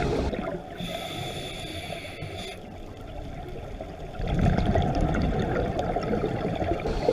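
Underwater bubbling and gurgling from scuba regulators releasing exhaled air, heard through an underwater camera housing. The bubbling grows louder about four seconds in.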